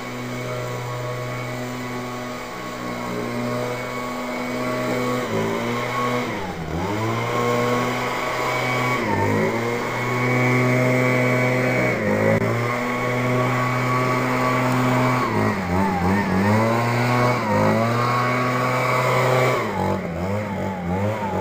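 Leaf blower running at high speed, blowing debris off a concrete driveway. From about six seconds in, its pitch dips and recovers several times as the throttle is eased and squeezed again.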